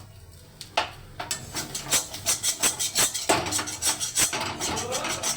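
Spatula scraping and tapping roasted ginger paste out of an iron kadhai in quick repeated strokes, starting about a second in.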